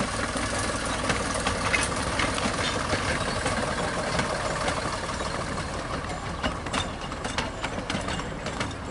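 Narrow-gauge diesel-hydraulic locomotive's engine running steadily as it pulls a train of passenger coaches past, with a string of sharp clicks from the wheels on the track.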